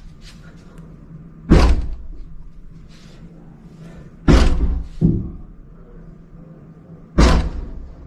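Heavy thuds of a man punching the walls in a neighbouring room: four blows a couple of seconds apart, two of them in quick succession midway, each ringing on briefly.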